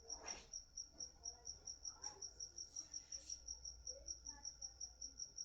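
A cricket chirping steadily in an even, rapid pulse of about five high chirps a second, with a few faint brief scratching sounds.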